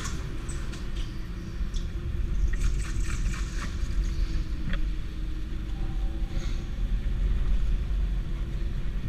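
Electric go-kart's motor whining at a steady pitch that rises and falls slightly with speed, over a heavy low rumble of the kart running on the concrete track, with a few light clicks and knocks from the chassis.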